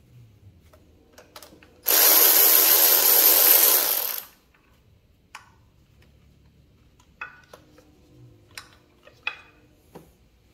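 Shop vac running for about two seconds, a loud rush of air as its nozzle sucks debris out from around the intake manifold bolt holes, starting and stopping abruptly. A few light metal clicks and clinks of tools follow.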